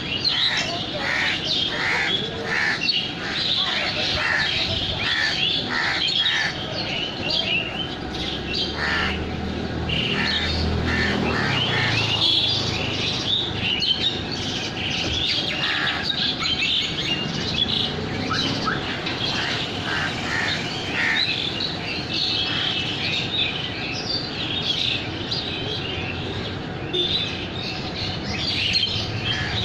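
A flock of small birds chirping continuously, many short high calls overlapping in a dense chorus. A low rumble comes in about ten seconds in and fades a few seconds later.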